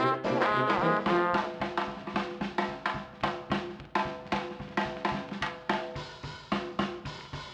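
Instrumental music: a brass line for about the first second, then a drum kit keeping a steady beat with snare and bass drum and brass behind.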